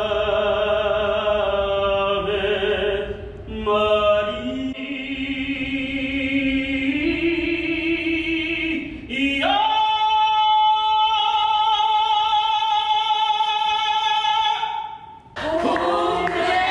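Music with singing: voices hold long notes over a line that steps upward, then one note is held for about five seconds before it cuts off suddenly.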